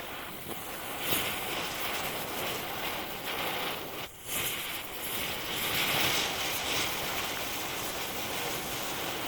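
Fireworks hissing steadily as they spray sparks. The hiss swells about a second in and again around six seconds, with a brief break near four seconds.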